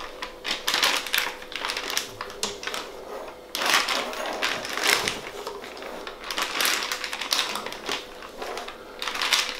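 A spatula scraping mashed potato out of a stainless steel pot and knocking against it, with a plastic piping bag rustling as the mash is spooned in: a run of irregular clicks and short scrapes.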